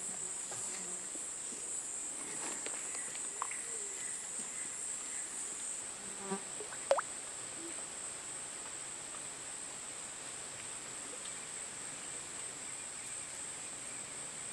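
Steady high-pitched chorus of tropical forest insects, with a few faint clicks and a sharper click about seven seconds in.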